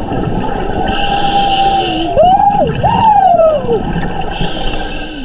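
Humpback whale song heard underwater: a long held moan that then breaks into arching, rising-and-falling cries, repeated. Twice a diver's regulator exhales a burst of hissing bubbles over it.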